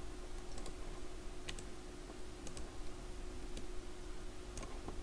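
Scattered single computer-input clicks, roughly one a second, over a steady low electrical hum.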